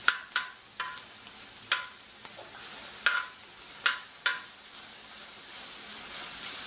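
Sliced onions, beef and chicken strips sizzling on a steel plow-disc griddle, with a metal spatula scraping and clacking against the steel about seven times as the onions are stirred.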